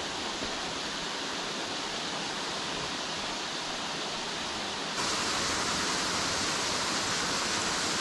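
Steady rush of a small waterfall and creek water spilling over rock, with no distinct events. About five seconds in it suddenly becomes louder and hissier.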